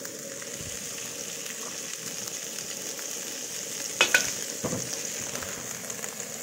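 Chopped vegetables, egg and meat toppings sizzling in a hot wok with a steady hiss. About four seconds in, a metal spatula clanks sharply against the wok a few times while stirring.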